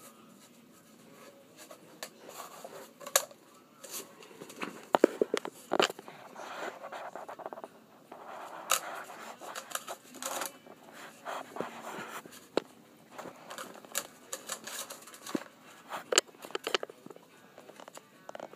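Irregular scuffling and rustling with many sharp clicks and taps, from a puppy scrambling after a cat toy on carpet and bedding while the phone filming it is handled.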